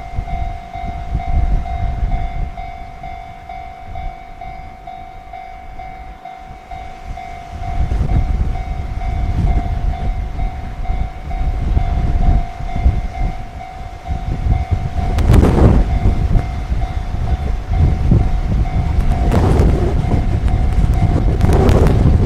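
Level-crossing warning bell ringing steadily while strong wind buffets the microphone. A freight train's rumble grows louder from about eight seconds in, with heavy gusts near the end.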